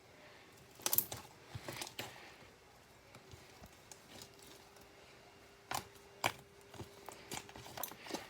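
Glitter slime made from glue and foam soap being poked, stretched and squished by hand, giving scattered sharp clicking pops: a few about a second in, then a quicker run of them in the second half.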